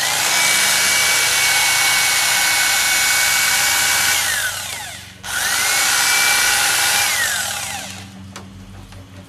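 Electric fillet knife running while filleting fish, in two runs: its motor whine rises to a steady high pitch, holds for about four seconds, and winds down. It starts up again about five seconds in and runs down again about eight seconds in.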